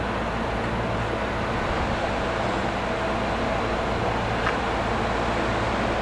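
Steady vehicle noise: a constant rushing sound over a low hum, with no distinct events.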